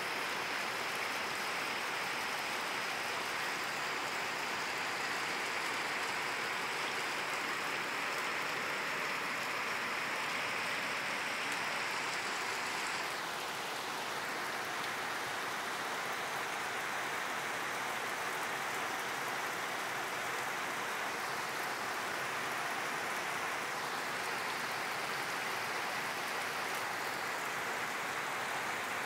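Heavy rain falling steadily on trees and a wet rooftop, an even hiss that drops slightly about halfway through.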